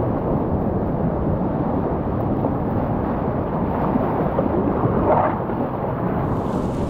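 Whitewater rapids rushing steadily around a kayak, heard close up from the boat, with a brief brighter splash about five seconds in.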